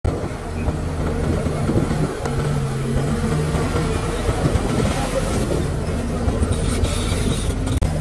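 Heavy diesel engine of earthmoving machinery (a bulldozer or dump truck) running steadily, its pitch shifting a few times.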